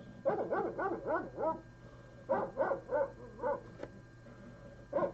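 Recorded dogs barking, played back as an alarm sound by a Raspberry Pi burglar-alarm program: a quick run of barks, four more in the middle, and one near the end.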